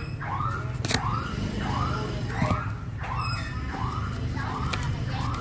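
An electronic siren or alarm sounding a repeated rising-and-falling whoop, about one cycle every 0.7 seconds, over a steady low hum.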